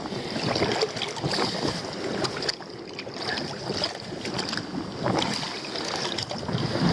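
Wind buffeting the microphone over shallow seawater sloshing and lapping among shoreline rocks, an irregular, uneven rush with a few small knocks.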